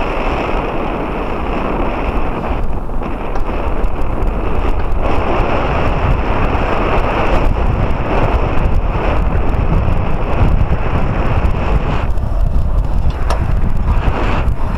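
Wind buffeting the microphone, a continuous rumbling rush that rises and eases.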